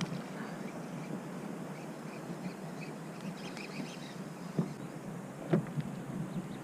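Steady wind and water noise around a sea kayak, with a few faint short chirps in the middle and two sharp knocks near the end.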